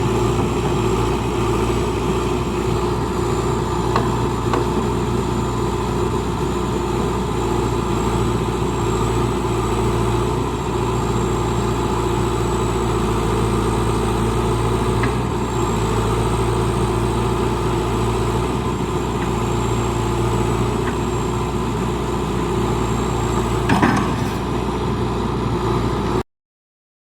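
John Deere 310SE loader backhoe's diesel engine idling steadily, with a faint high whine over it and a single knock near the end; the sound stops abruptly just before the end.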